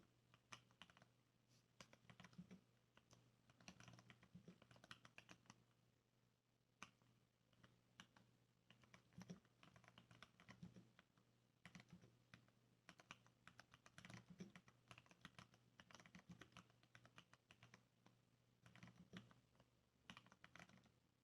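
Typing on a Varmilo mechanical keyboard with lubed Cherry MX Brown switches and sound-dampening foam. The keystrokes come in quick runs with short pauses and sound soft and faint.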